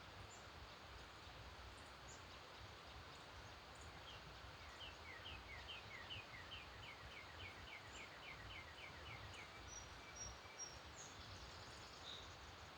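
A songbird singing one phrase of short down-slurred notes that speed up into a trill, over a faint background hiss, with a few faint high chirps from other birds.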